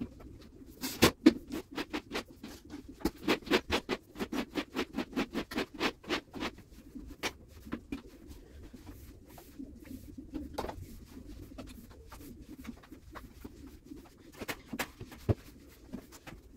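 Broom sweeping loose dog hair across the floor: quick, scratchy strokes, about four a second for the first several seconds, then slower and more scattered.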